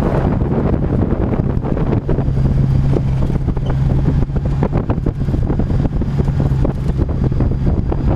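Side-by-side utility vehicle's engine running at a steady drone while driving, with wind buffeting the microphone.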